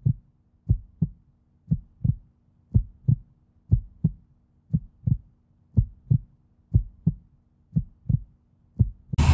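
Heartbeat sound effect: pairs of low thumps in a steady lub-dub, about once a second.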